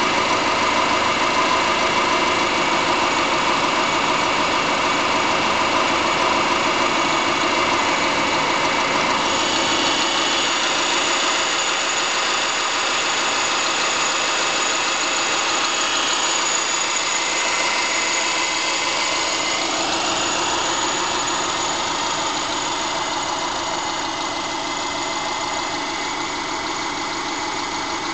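2005 Subaru Forester's EJ25 naturally aspirated flat-four engine idling with a rapid, steady knock that the owner takes for piston slap.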